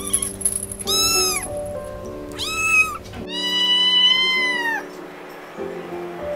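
Kitten mewing three times in high calls, the last the longest, over background music with long held notes.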